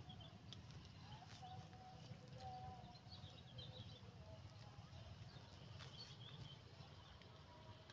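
Near silence: faint outdoor background hum with a few faint bird chirps.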